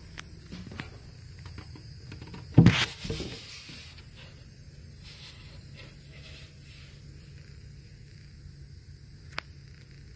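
Handling noises over a steady hiss: a few light clicks, one loud thump with a short rattling tail about two and a half seconds in, and a single sharp click near the end.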